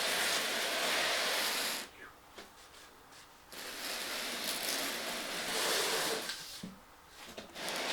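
Rustling and rubbing of packaging as the RC car is unpacked, in two long stretches with a quieter pause between them.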